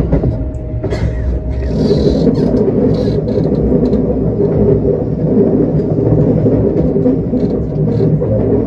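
Commuter train running along the line, a steady rumble of wheels on rail heard from inside the car, with a few light clicks early on and the rumble growing louder about two seconds in.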